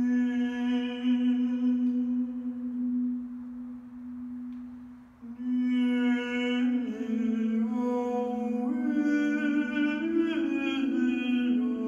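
A man's wordless vocal improvisation: a long held sung note that fades out about five seconds in, then more held notes that step and slide between pitches, several sounding together from about seven seconds in.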